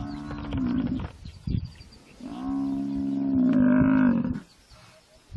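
African buffalo bellowing in distress while hyenas eat it alive: two long, level moans, the second starting about two seconds in and lasting about two seconds.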